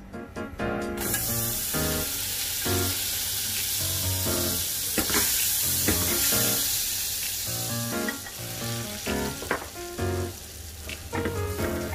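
Butter sizzling as it melts in a hot non-stick pan while being stirred with a silicone spatula: a dense hiss that starts suddenly about a second in and dies down somewhat in the last few seconds.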